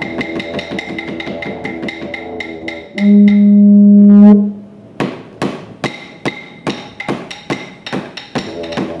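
Didgeridoo drone under fast clapstick beats. About three seconds in, the didgeridoo gives a loud, held higher toot; after it the clapsticks go on alone with sharper, slower strikes, about two or three a second.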